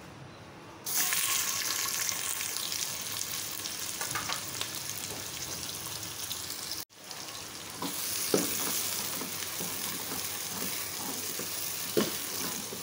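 Sliced onions sizzling and frying in about half a cup of hot oil in a pressure cooker. The sizzle starts suddenly about a second in and breaks off briefly near the middle. Later the onions are stirred with a wooden spoon, with a few knocks against the pot.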